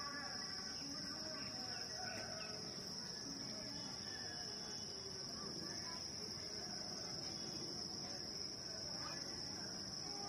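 Steady, unbroken high-pitched insect drone, like crickets or cicadas, over faint lineside ambient noise.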